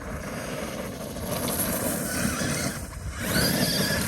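Traxxas E-Revo RC monster truck on Pro-Line Trencher X tires, driving. Its electric motor and drivetrain whine over the rush of the tires on the ground, and the whine rises in pitch about three seconds in as it accelerates.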